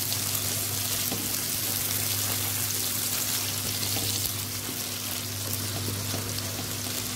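Chopped onions and tomatoes sizzling in hot oil in a kadhai while being stirred with a spoon, over a steady low hum.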